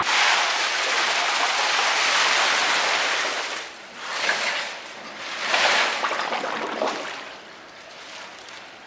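Water churning and bubbling in an ice bath tub. A steady rush runs for about three and a half seconds, then comes back in two shorter surges that fade away.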